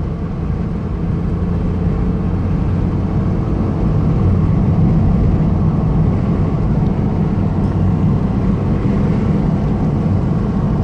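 Steady car-interior road noise while driving: low engine drone and tyre rumble on asphalt, with no change in pace.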